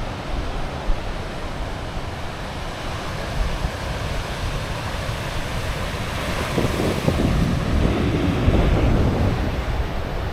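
Wind rushing and buffeting the microphone outdoors, with a low rumble that swells in the second half.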